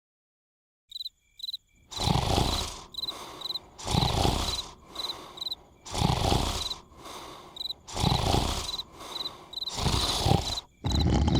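Crickets begin chirping about a second in. Then a cartoon character snores loudly, one snore about every two seconds with a quieter breath between, while the crickets keep chirping.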